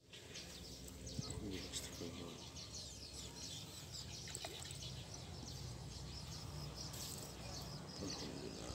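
Small birds chirping and twittering, many short high calls scattered all through, over a quiet outdoor background.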